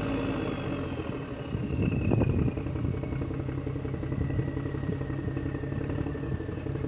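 Motor vehicle engine running with a steady low hum and a higher whine that slowly falls in pitch, swelling briefly about two seconds in.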